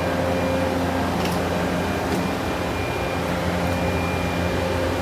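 Steady mechanical hum with a thin high whine at an airliner's boarding door, the drone of the aircraft's and jet bridge's air and power machinery, with a couple of faint clicks.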